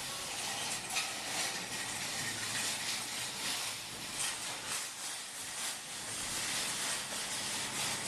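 A steady hiss with faint, irregular crackle running through it.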